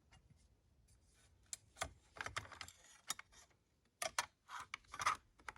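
Irregular clicks and short rattles of parts being handled and pushed together while fitting a piece onto an airsoft AK-74 replica. The clicks begin about a second in, with denser clusters in the middle and near the end.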